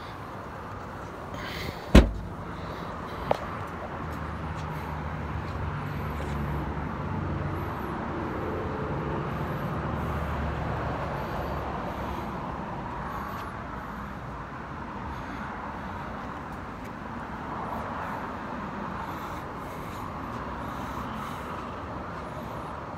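A Kia SUV's rear liftgate shutting with one loud thump about two seconds in, then a small click. After that comes steady open-air noise, with a low engine hum that swells and fades between about four and twelve seconds in.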